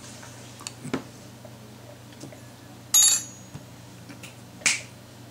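A few sharp clicks and smacks: a short click about a second in, a louder smack about three seconds in, and another near the end.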